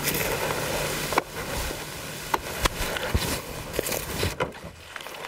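Footsteps and rustling of a person walking through forest undergrowth, with several sharp snaps scattered through.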